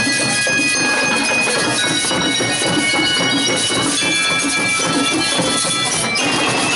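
School marching band playing: metal bell lyres ringing out held high notes over a steady beat of snare and bass drums.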